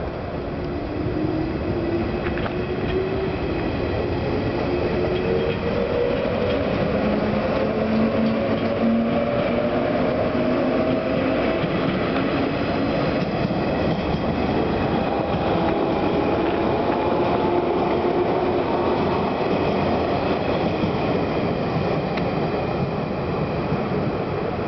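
JR West 117 series electric multiple unit pulling away and accelerating past, its wheels rumbling on the rails. A whine rises in pitch as it gains speed, coming in two waves as the motor cars go by.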